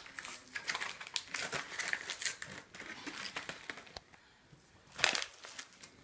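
Protective film being peeled off an acrylic panel, crinkling and crackling, with a louder burst of crackle about five seconds in.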